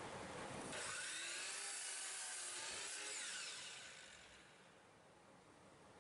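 A wooden board being slid along a miter saw's fence and table: wood rubbing and scraping. It starts about a second in and fades away over the next three seconds.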